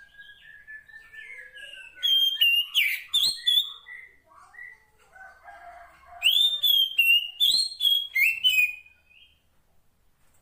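Female Oriental magpie-robin (kacer poci) calling to a male: a long thin whistle, then two bursts of quick, varied whistled chirps, about two seconds in and again about six seconds in, the second lasting about three seconds.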